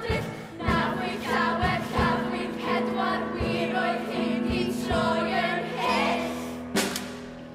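A choir of school-age singers sings with instrumental backing and a regular beat, growing slightly quieter near the end.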